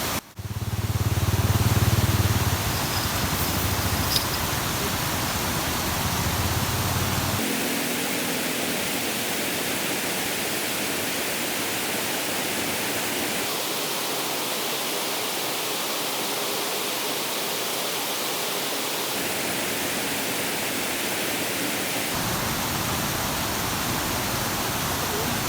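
Steady rush of flowing river water, with a low rumble during roughly the first seven seconds; the background changes abruptly a few times.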